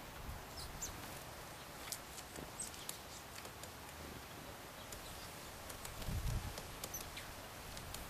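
Great spotted woodpecker pecking at peanuts through a wire-mesh feeder: scattered light ticks and taps at irregular intervals. Faint short bird chirps sound in the background, and there is a brief low rumble about six seconds in.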